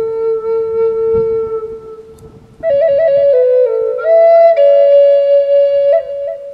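Pimak, a Native American-style flute in G, playing a slow improvised melody. A long held low note fades out about two seconds in. After a short breath a new phrase starts with quick grace-note flourishes and settles on held, slightly higher notes.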